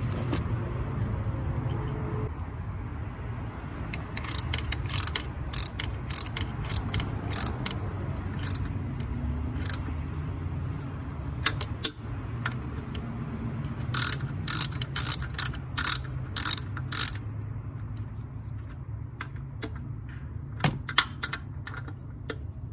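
Ratchet wrench clicking as it tightens the throttle body mounting bolts, in two main spells of quick clicks with scattered single clicks between and after, over a steady low hum.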